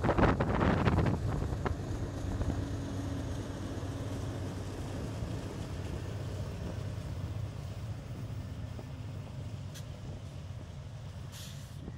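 Norfolk Southern diesel-electric locomotives passing close by, with engine rumble and wheels on rail. Loudest in the first second or so, then a steady, lower rumble as the rest of the lash-up goes by.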